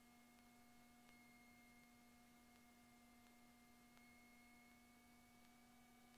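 Near silence: a faint, steady hum of a few fixed tones.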